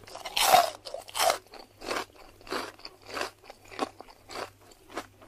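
Pani puri being chewed: crisp fried puri shells crunching in the mouth in a steady run of about eight crunches, roughly one every half second, the loudest about half a second in.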